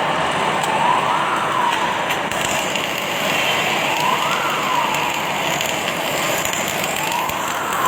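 An industrial warning siren wails up and down three times, each sweep about a second long and roughly three seconds apart, over the loud steady hiss and clatter of a factory floor.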